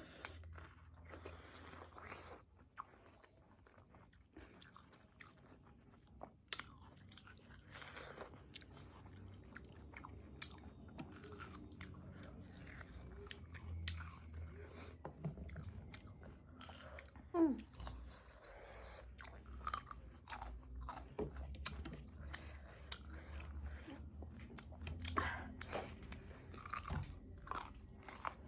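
Close-miked eating: people chewing and biting food, with many short, irregular wet mouth smacks and clicks.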